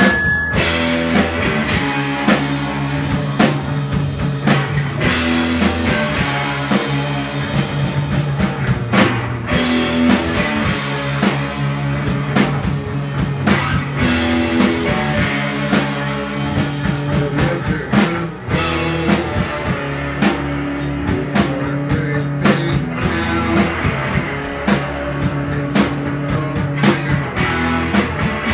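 A rock band playing live: guitar and drum kit over sustained low notes, with a steady beat.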